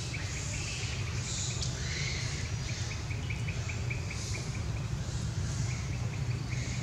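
Outdoor ambience: a small bird chirping in quick runs of short repeated notes, and insects buzzing in swelling patches, over a steady low rumble.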